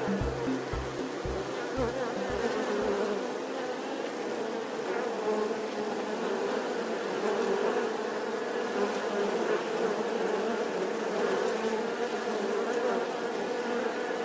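Bees buzzing in a steady, continuous hum. For the first few seconds a low thumping beat sits under the buzzing, then fades out.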